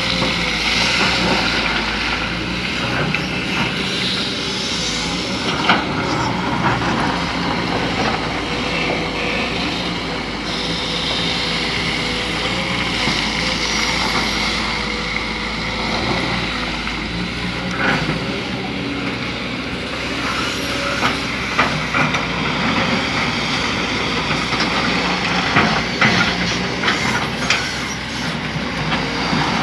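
Excavator's diesel engine running steadily while it digs, with sharp clanks of the bucket and rock, one now and then and several in quick succession near the end.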